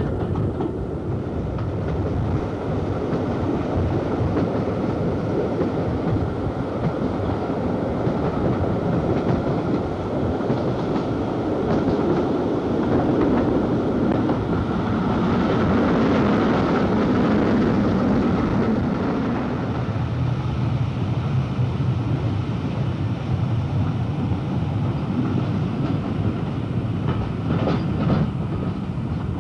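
Passenger train running along the line, heard from an open carriage window: a steady rumble of wheels on rail, with a few sharper clacks near the end.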